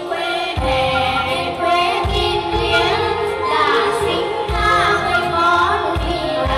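Voices singing a Nghệ Tĩnh folk song (dân ca) over an instrumental backing track with a steady low beat.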